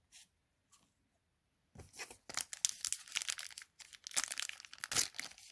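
A trading card pack's wrapper being torn open and crinkled, starting about two seconds in as a dense run of crackling.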